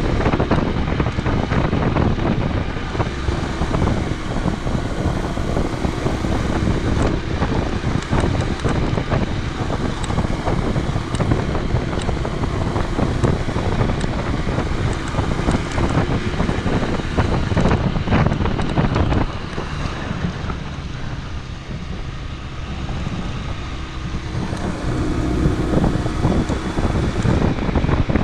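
Wind buffeting the camera microphone on a moving motorcycle, over the steady running of a Honda CD125T's small parallel-twin engine. The sound drops for a few seconds a little past the middle, then picks up again.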